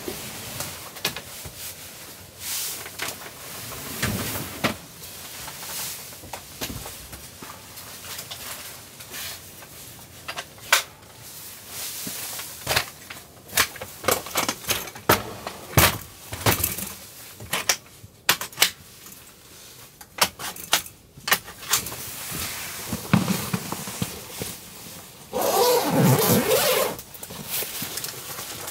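Camping gear being handled and packed by hand: a string of clicks, knocks and clatters of hard plastic crates and small items, with fabric rustling between them. Near the end there is a louder scraping rustle that lasts about a second and a half.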